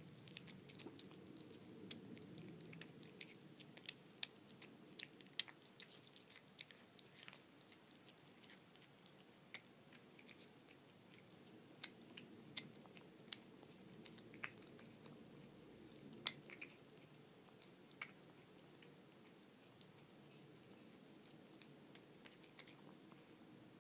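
A domestic cat eating flaked tuna from a plate: faint chewing with many small sharp clicks of its mouth and teeth. The clicks come often through the first half and thin out later as the food runs low.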